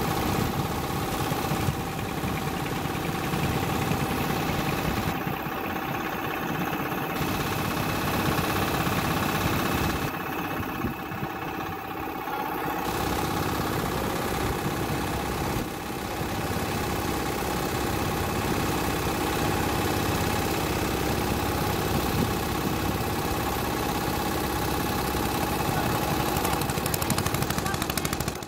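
Boat engine running steadily at an even speed.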